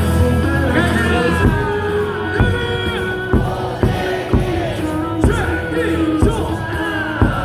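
Ballpark PA music with a heavy drum beat, about two beats a second, and a crowd singing along.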